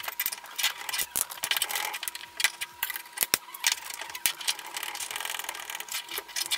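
3D-printed PLA plastic parts clicking and scraping against each other as they are handled and a shaft is pushed into a tight-fitting hole in a printed stand. The clicks and rubs are many and irregular.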